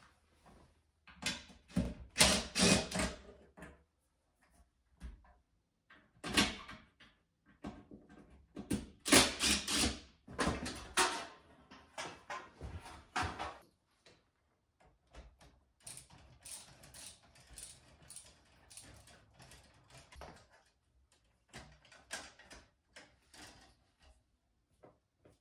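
Clanks, knocks and scrapes of a steel electrical breaker panel as its cover is unscrewed and taken off, louder in the first half, then lighter scattered clicks from work on the breakers and wires inside the panel.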